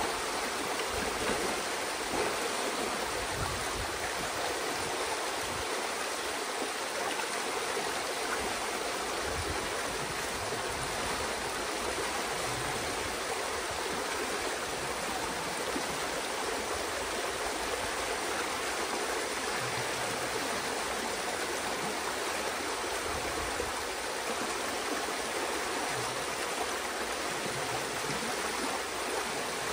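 Water rushing steadily through a breach torn in a beaver dam, the pond draining out through the gap in a continuous, foaming flow.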